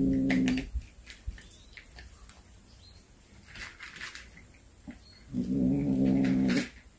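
Tabby cat giving long, low, steady growling yowls, two of them: one ending about half a second in and another starting about five and a half seconds in. This is a guarding growl over a snake it has caught, with faint scuffing between the calls.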